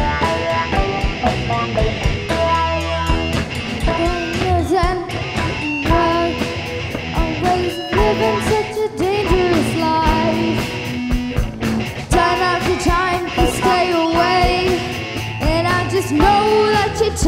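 Rock band playing live: electric guitars over drums and bass, with a pitched line that bends up and down.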